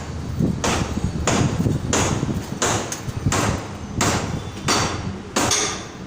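Hammer blows struck repeatedly at a steady, even pace, about three blows every two seconds.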